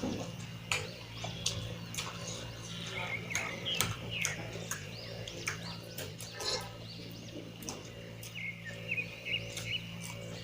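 Close-up wet chewing and lip-smacking of someone eating curry and rice in big bites, with irregular clicks and smacks a few times a second over a steady low hum.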